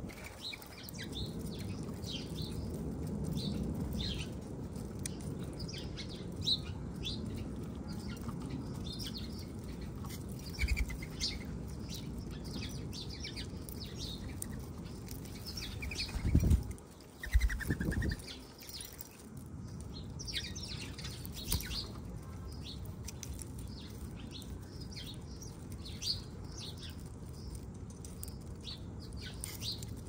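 Small backyard birds at a feeder chirping with many short high calls, and wings flapping as they come and go, with two louder low flutters about sixteen and seventeen seconds in.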